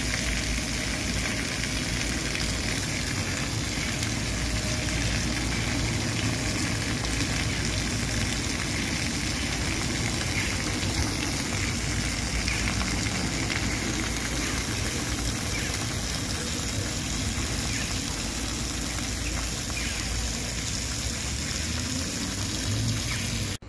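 Fountain jets splashing steadily into a shallow basin, an even hiss of falling water.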